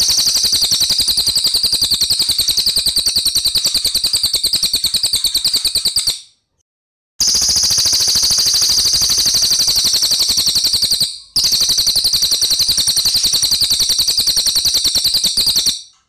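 Crested jay (cililin) calling in a loud, high, tight rolling trill of very fast repeated notes, in three long runs: about six seconds, a second's pause, then two runs of about four seconds split by a brief break.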